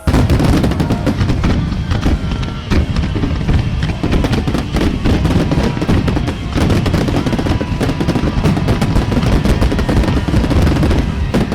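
Fireworks barrage: many shells bursting in quick succession, with booms and crackling, over loud pop-rock music played with the show.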